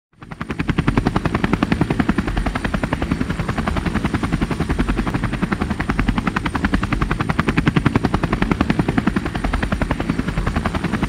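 Helicopter flying, its rotor blades beating in a fast, even rhythm of roughly ten beats a second, with a thin high whine above; it fades in at the very start.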